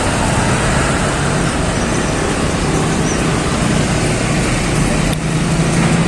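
CC 201 diesel-electric locomotive's GE 7FDL-8 V8 diesel engine running steadily at close range, a loud even noise with a low hum; the level dips briefly about five seconds in.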